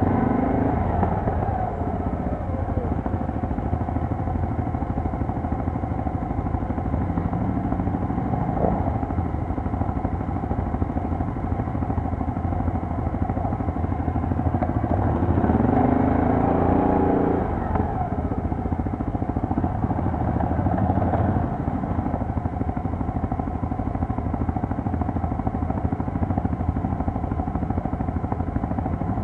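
Quad bike engines running under way, the engine note rising and falling with the throttle, a little louder about halfway through.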